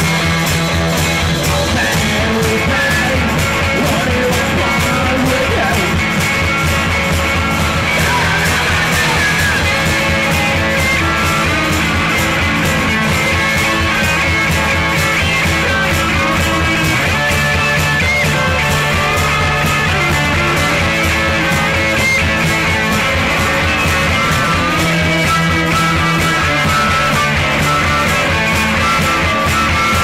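Rock music with electric guitar over a fast, steady drum beat.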